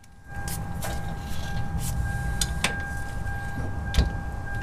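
Small DeWalt cordless impact gun running on a drive shaft flange bolt: a steady motor whine over a low rattle, starting just after the beginning and holding, with two sharp clicks about two and a half and four seconds in.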